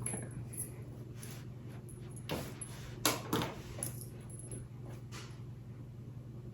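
Metal measuring spoons clinking and rattling, with a cluster of sharper clinks a few seconds in, while spice mix is measured out. A steady low hum runs underneath.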